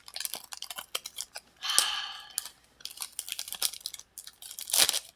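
Pokémon card booster pack being opened and handled: the foil wrapper crinkles and crackles in quick irregular bursts, with a louder rustle a little under two seconds in and another near the end.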